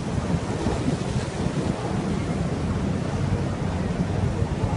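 Steady rushing of floodwater from a flash flood (seil) in a wadi after heavy rain, with wind buffeting the microphone.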